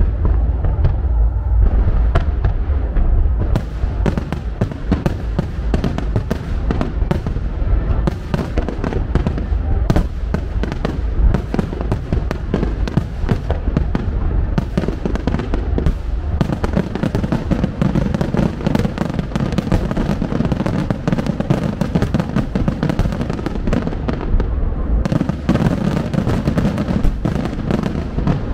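Starmine fireworks finale: a rapid barrage of aerial shells bursting over and over, with bangs overlapping into a continuous rumble that gets heavier from about halfway.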